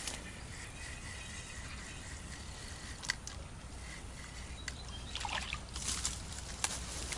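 Water splashing briefly twice, about five and six seconds in, as a small hooked fish is drawn in at the surface, with a few sharp clicks and a steady low wind rumble.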